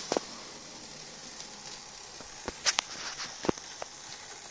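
Model railway train, a Class 37 model locomotive pulling coaches, running slowly along the track: a faint steady hiss with a few scattered sharp clicks, the loudest about three and a half seconds in.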